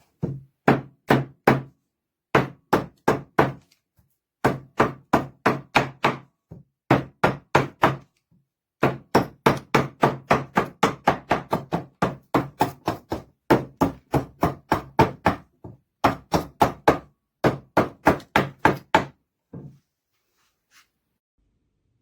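A small multitool hatchet head striking again and again, about three to four blows a second, in bursts of a few seconds with short pauses between, stopping shortly before the end.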